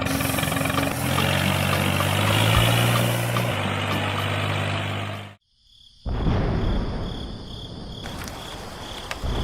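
A steady low mechanical hum, its pitch stepping up and down, cuts off abruptly about five seconds in. After a moment of silence, crickets chirp in a steady pulse of about two chirps a second over a hiss.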